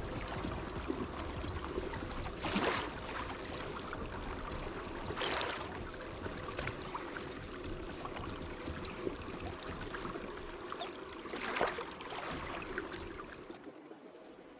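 Small waves lapping and sloshing against a kayak's hull on calm sea, with three brief louder swishes of water. The sound drops away near the end.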